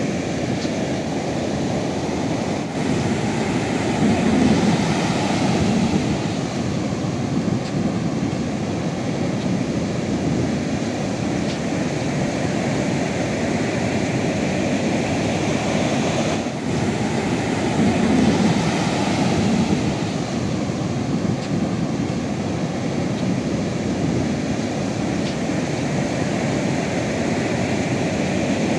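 Sea waves rushing and washing in a steady roar, swelling louder twice as larger waves break.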